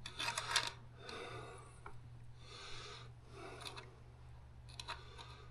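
Faint scraping and a few light metallic clicks as internal parts are worked loose inside a 4R100 automatic transmission case, over a steady low hum.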